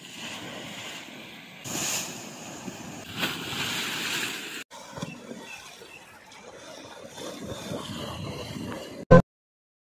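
River water churning and splashing against an eroding earth bank, mixed with wind on the microphone. The rushing noise rises and falls, breaks off briefly about halfway, and ends with a sharp click near the end, then silence.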